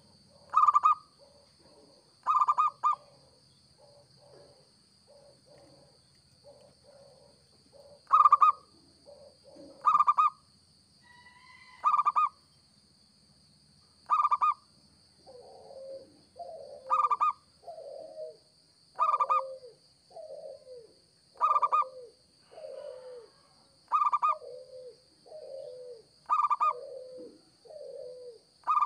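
Zebra dove (perkutut) singing: loud, short cooing calls repeat about every two seconds, with softer, lower cooing notes between them that come thicker and stronger in the second half.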